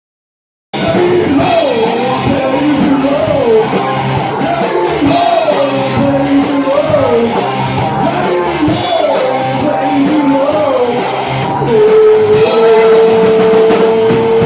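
A rock band playing electric guitar, bass and drums, starting abruptly about a second in: a lead line bending up and down over steady cymbal strokes, then one long held note near the end.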